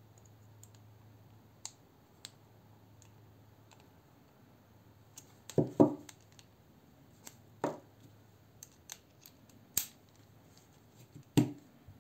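Scattered small clicks and knocks as a metal folding knife and a ratchet screwdriver are handled and set down on a table during disassembly. The loudest is a double knock about halfway through, with a few sharper clicks and knocks after it.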